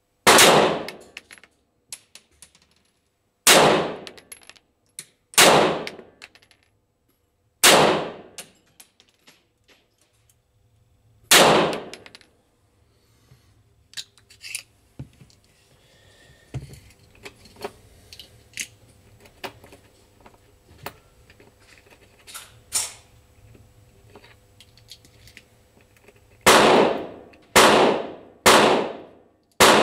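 Pistol shots, about nine in all, each with a short echoing tail. Five come a few seconds apart, then there is a lull with faint clicks and knocks, then a quick string of four shots about a second apart near the end.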